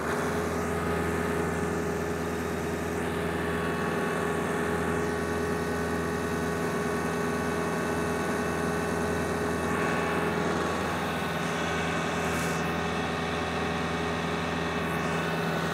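Kubota compact diesel tractor running steadily under load, driving a Maschio PTO power harrow through the soil, with an even, unchanging engine note.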